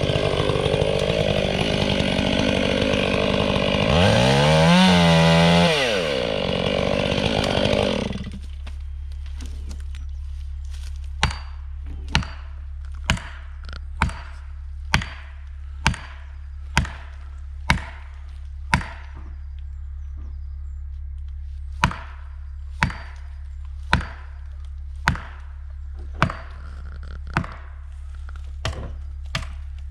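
Husqvarna 592XPG two-stroke chainsaw running at high revs, its pitch dipping and climbing again, then cutting out about eight seconds in. A low steady hum stays under a long run of sharp strikes, about one a second, like hammering a felling wedge into the cut.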